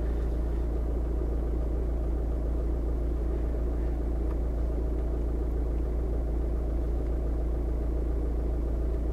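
Car engine idling steadily, a low, even rumble heard from inside the cabin.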